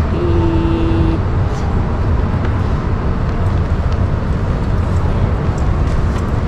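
Steady low rumble of vehicle or machinery noise, with a brief steady tone lasting about a second near the start.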